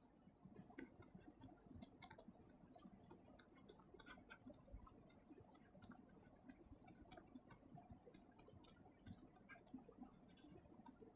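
Faint, irregular small clicks and taps, several a second, over near silence: the sound of the lecturer writing on a tablet.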